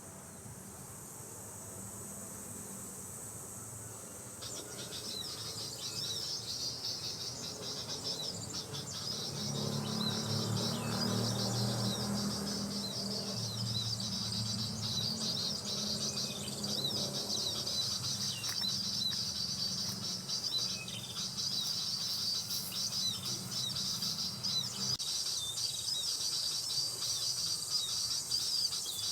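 Rapid, dense high-pitched bird chirping that starts about four seconds in and keeps going, over a steady high insect buzz. A low rumble runs underneath through the middle.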